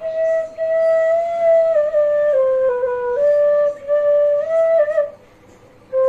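Bamboo bansuri flute playing a slow melody of held notes that step up and down, with small ornaments between them. It breaks off for about a second near the end, then starts again.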